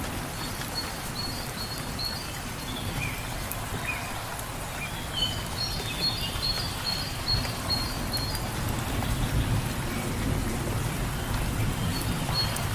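Steady rain falling in a forest, with a bird giving two runs of quick, high chirps, about three a second, one near the start and one in the middle.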